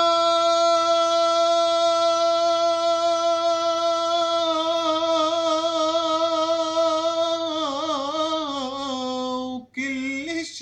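A man singing an Arabic song, holding one long steady note for about seven seconds, then wavering through ornamental turns, breaking off briefly, and ending on a slightly lower held note. No instruments are heard with the voice.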